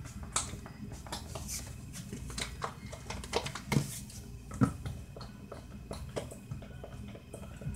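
Plastic lotion bottle shaken and squeezed upside down, giving irregular knocks and clicks, the loudest about four and a half seconds in. Little lotion comes out even though the bottle is said to hold plenty.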